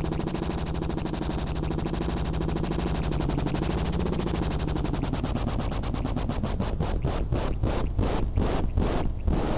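Experimental improvised music: a dense, buzzing noise texture with a pitch sweep about four seconds in, breaking up into rapid regular pulses over the second half.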